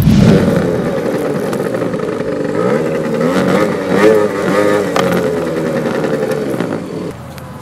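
Genuine Roughhouse R50 scooter's 50cc two-stroke engine running while riding, its pitch wavering up and down with the throttle. It starts abruptly and drops away near the end.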